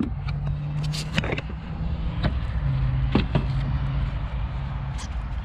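A few sharp clicks and knocks from the fuel hose and diesel filter housing being handled and fitted, over a steady low rumble with a low hum that comes and goes.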